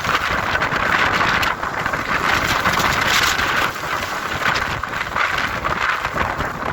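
Hurricane-force wind blowing in gusts, rising and falling, with the wind buffeting the microphone.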